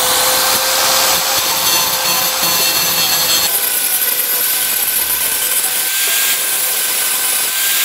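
Corded angle grinder with a thick cutoff wheel running steadily and grinding flux-core weld spatter off an exhaust pipe. Its sound changes about three and a half seconds in, to a higher tone and brighter hiss, as the wheel bites into the weld.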